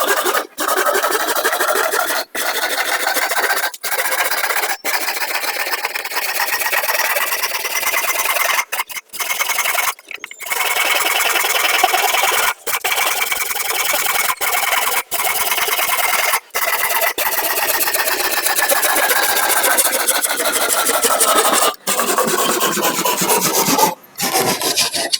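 A hand tool rasping steadily across wood, a continuous scratchy grind broken by brief pauses every few seconds.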